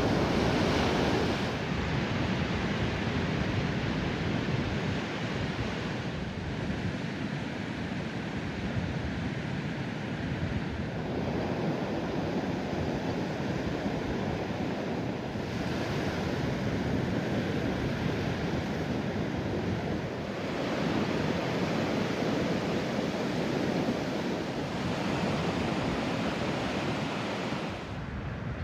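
Ocean surf breaking and washing up a beach, swelling and easing every few seconds, with some wind on the microphone.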